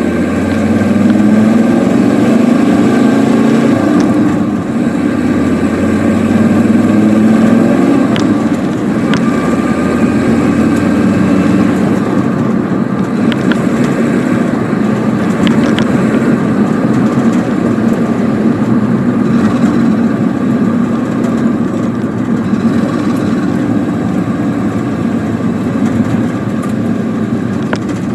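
Volkswagen 2.4 D (AAB) five-cylinder diesel engine running while the vehicle drives, its note rising and falling over the first several seconds as the revs change, then pulling steadily.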